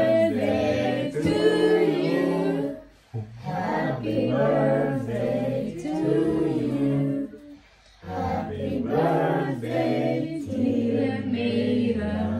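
Several voices singing a birthday song together, unaccompanied, in three phrases with two short breaks.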